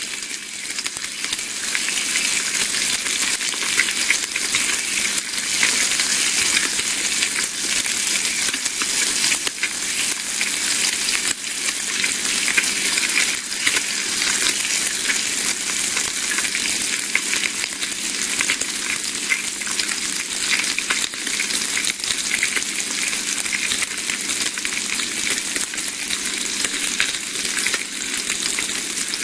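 Bacon frying in a pan: a steady, dense sizzle with many fine crackles and pops.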